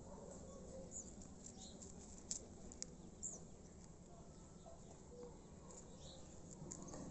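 Faint, quiet sound of rabbits nibbling vegetable scraps, a few short sharp ticks and rustles, with a few faint short high chirps.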